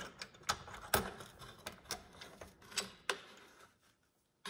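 Irregular light metallic clicks and taps of small rifle parts being handled: an AR-style rifle's recoil spring and guide rod being seated in the rear of the rifle and the end cap fitted over them. The clicking stops about a second before the end.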